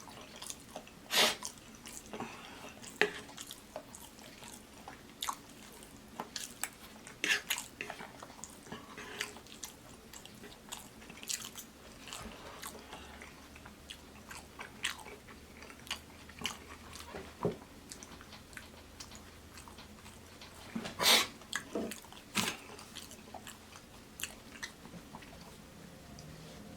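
Close-miked eating of oxtails: wet chewing, lip smacks and bites, with scattered sharp clicks and a louder pair of smacks about a second in and near 21 seconds.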